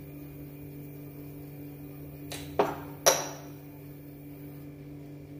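Two sharp clinks of kitchen utensils as salt is added to the curry, about half a second apart, the second louder with a brief ring, over a steady low hum.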